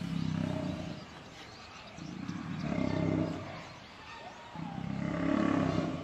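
Lions growling in a fight, as lionesses mob a male lion: three long, low, rumbling growls about two seconds apart.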